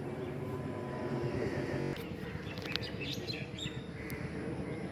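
Small birds chirping, with a few short high calls clustered around the middle, over steady outdoor background noise. A low hum stops about two seconds in.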